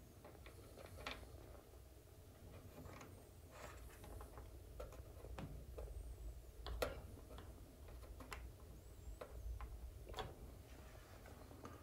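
Fingers pressing small plastic screw caps into place on the inspection cover of an electric water heater: faint, irregular light clicks and taps. The sharpest comes about seven seconds in, and another about ten seconds in.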